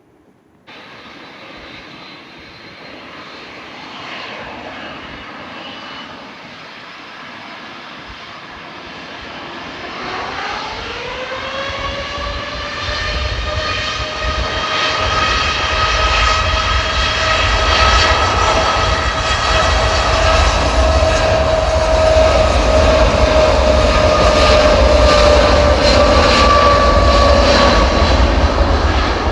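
Jet airliner's engines spooling up for takeoff. The sound starts abruptly just under a second in, and around ten seconds in a whine rises in pitch and levels off. The engine noise then grows steadily louder and holds at full takeoff power.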